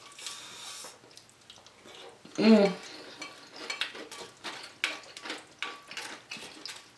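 Metal spoon clinking and scraping against a stemmed glass bowl as soup is scooped out, in many short sharp clicks. A brief vocal sound comes about two and a half seconds in.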